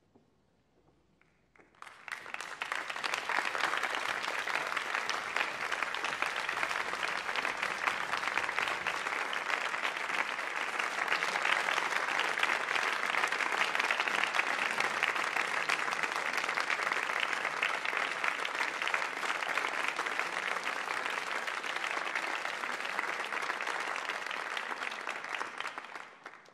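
Audience applause: dense, steady clapping that swells in quickly about two seconds in and stops near the end.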